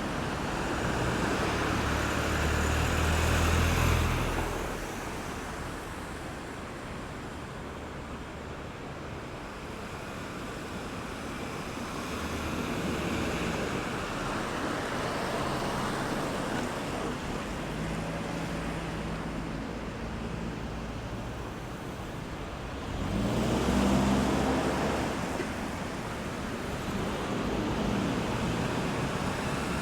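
Road traffic at a roundabout: a steady rush of passing cars, with a vehicle's engine loud in the first few seconds and another passing loudly about three-quarters of the way through.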